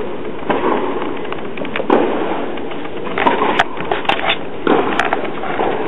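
Tennis rally on an indoor court: sharp pops of the ball struck by rackets and bouncing on the court, several separate hits a second or so apart, over steady hall noise.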